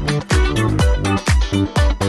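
Background dance music with a steady kick-drum beat, a little over two beats a second.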